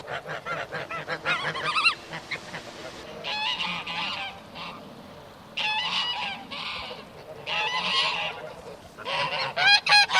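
Domestic geese honking and cackling in rapid repeated bursts, in several loud spells with short lulls between them.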